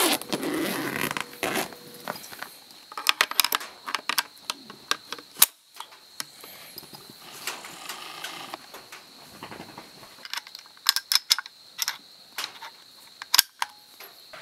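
Hunting gear being handled: a backpack rustling as it is rummaged, brass rifle cartridges clinking in their box, and many sharp clicks and knocks from handling a scoped rifle. A faint steady high tone runs in the background.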